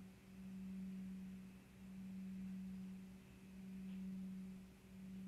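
A steady low tone with a faint overtone, swelling and dipping gently in loudness about every second and a half.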